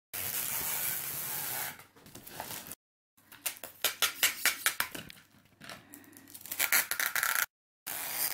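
Christmas wrapping paper rustling, crinkling and tearing as a dog paws and pulls at wrapped presents: stretches of rustling and a quick run of sharp crackles, cut off abruptly twice.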